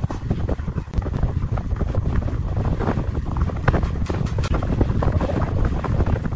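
Wood lathe running: a steady low rumble with irregular crackling ticks, and a few sharper clicks about four seconds in.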